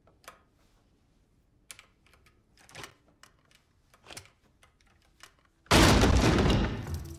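Metal lock picks clicking and scraping in a door lock, a handful of small ticks a second or so apart. About six seconds in, a sudden loud crash cuts in and dies away over a second.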